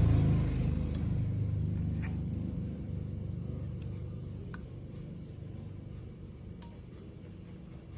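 A low mechanical hum that fades steadily over several seconds, with a few faint clicks.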